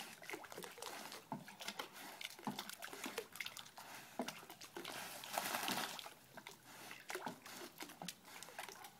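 Dog swimming in a backyard pool: faint, irregular splashing and lapping of water from its paddling, with a brief louder rush of water noise about five and a half seconds in.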